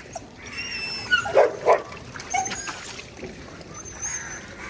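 A dog yipping and barking, loudest as two sharp barks about a second and a half in.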